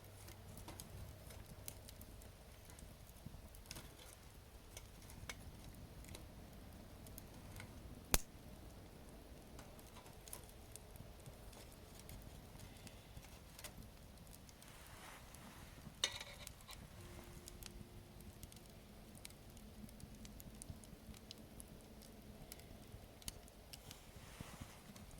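Wood fire burning quietly with scattered small crackles and pops, and one sharp loud crack about eight seconds in and another around sixteen seconds.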